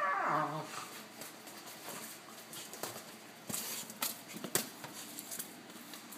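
A beagle's cry falling steeply in pitch at the start, then scattered light clicks and taps of claws on a tile floor.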